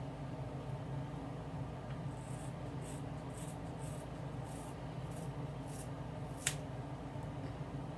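Scissors snipping straight across a fringe of wig hair to cut bangs. About ten short, crisp snips start about two seconds in, with one sharper click near the end, over a steady low hum.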